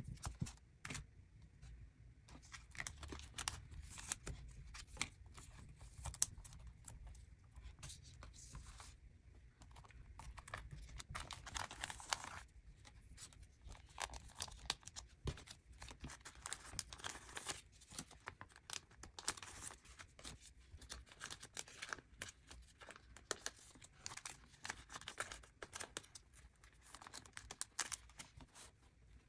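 Photocards in plastic sleeves and hard holders being handled and slid into the clear plastic pockets of a ring binder: irregular crinkling and rustling of plastic with light taps and clicks throughout.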